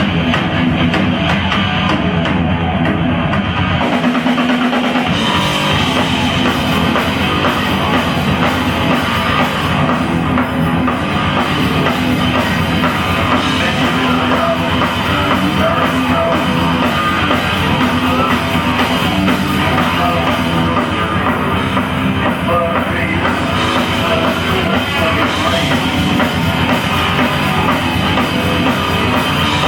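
Live hard rock band playing loud, with electric guitar, bass and a pounding drum kit. The low end drops out for a moment about four seconds in, then the full band carries on with more cymbal.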